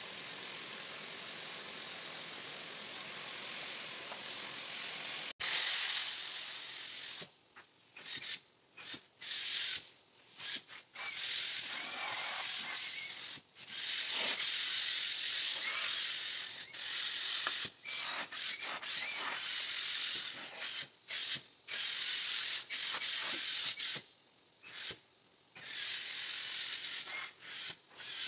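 Carpet-cleaning extractor's vacuum hose hissing steadily, then, about five seconds in, an upholstery extraction tool worked over a small fabric chair. It gives a loud, wavering high whistle of air being sucked through the upholstery, cutting in and out stroke by stroke.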